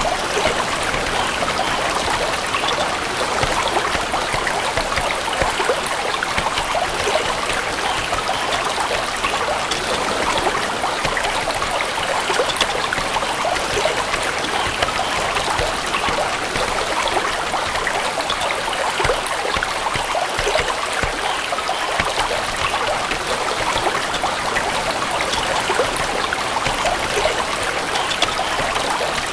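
Running water in a small stream, trickling and babbling steadily with fine splashy detail.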